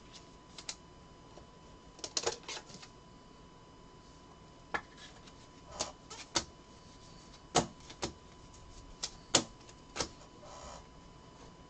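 Trading cards being handled and set down on a table: irregular sharp clicks and taps of card edges and stacks, with a short rustle near the end.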